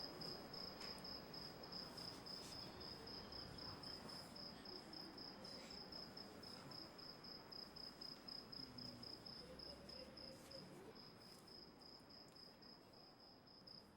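Cricket chirping faintly and steadily: one high-pitched trill pulsing about four times a second, over a faint background hiss.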